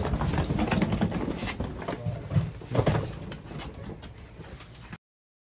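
Footsteps and the knocking and rustling of bags as people carry luggage in through a doorway: a run of irregular knocks that cuts off suddenly near the end.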